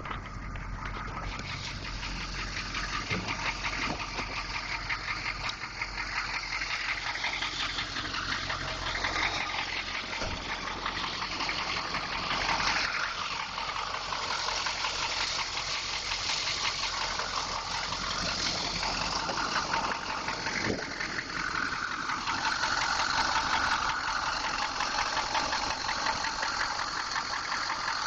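A 6.2-litre engine running with a fast, steady knock that goes on throughout.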